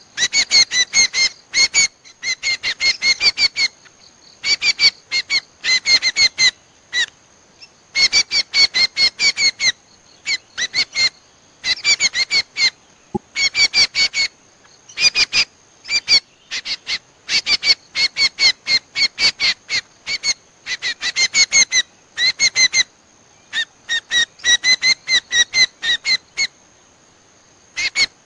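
Common iora (cucak kombo) lure call: rapid chattering runs of short, sharp notes in bursts of a second or two, with brief gaps between them. A thin steady high tone runs behind the calls.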